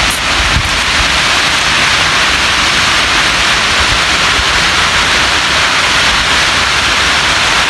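Water rushing down the concrete spillway chutes of Sholayar Dam: a loud, steady hiss, with a few low bumps in the first second.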